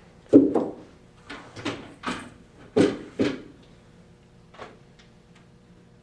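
Rubber mallet knocking end caps back into the ends of an aluminum chaise lounge frame: about eight short knocks, several in quick pairs, with fainter taps in the last couple of seconds.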